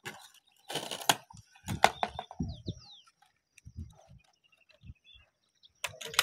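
Sharp knocks and clicks of a hard aluminium-framed equipment case being put down on paving slabs and its latches handled, in two clusters with a quiet gap between, the loudest knock about two seconds in. Two short falling high chirps sound faintly in the gap.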